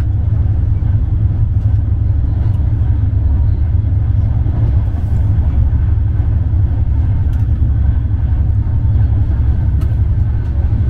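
Passenger train in motion: a steady, loud low rumble of the coach and wheels on the track, with a few faint clicks.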